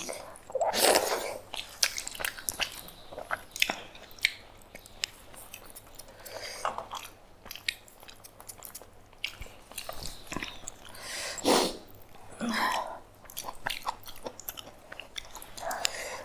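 Close-up eating sounds of people eating a rice-and-dal thali by hand: chewing and mouth smacks, with many small scattered clicks and a few louder wet sounds about a second in and again near the two-thirds mark.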